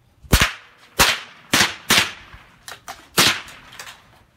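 Rifle shots on a shooting range: about five sharp cracks at uneven intervals from several bolt-action rifles, with a few fainter clicks in between.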